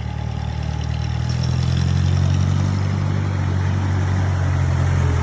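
Jeep engine running at low revs as the jeep drives slowly up a dirt track toward the microphone, a steady low rumble growing gradually louder.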